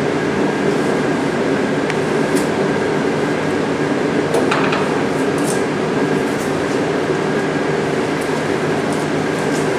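A motor-driven machine running steadily, with a constant thin whine over a dense hum and a few light clicks.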